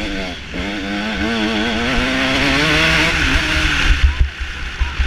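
Motocross bike engine revving up under acceleration, its pitch rising and wavering, then easing off a little after three seconds in. Wind noise and knocks on the microphone throughout, with the loudest knocks near the end.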